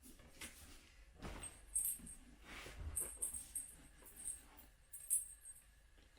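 A small bell jingling faintly a few times, with soft rustling movement in between.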